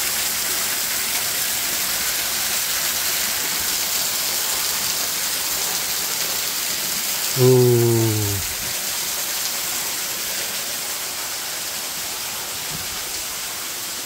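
Steady hiss of a waterfall, water falling and splashing onto rocks, growing slightly fainter after about eight seconds.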